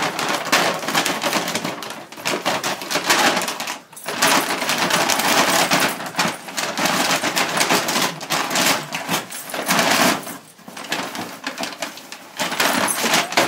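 Brown paper bag crinkling and tearing as an Australian Terrier bites, shakes and rips at it: a dense, crackling rustle that goes on in long stretches, broken by two short lulls.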